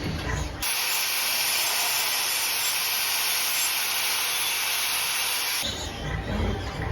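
A steady, even hiss that cuts in abruptly about half a second in and cuts off abruptly about a second before the end. Before and after it there is lower, uneven barn noise.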